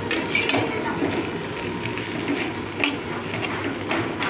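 Chicken chow mein frying in a pan, a steady sizzle with a few knocks of a spatula against the pan.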